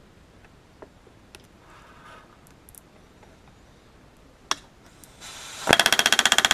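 Pneumatic rivet gun bucking a rivet: a short hiss of air, then a loud rapid hammering of about twenty blows a second, starting about five and a half seconds in. Before it, light clicks of parts being handled.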